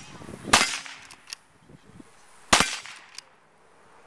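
Two lever-action rifle shots about two seconds apart, each followed by a few faint short clicks.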